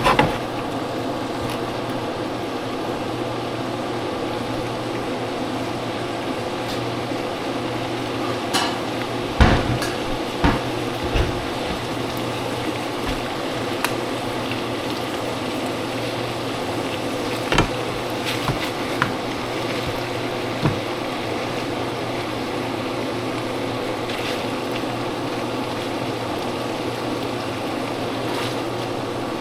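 Steady kitchen hum with the occasional knock and clatter of utensils and dishes, loudest around the middle.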